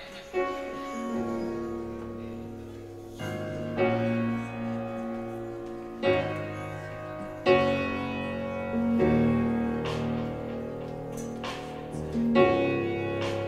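Piano playing slow, held chords, a new chord struck every one to three seconds, as the introduction to a song.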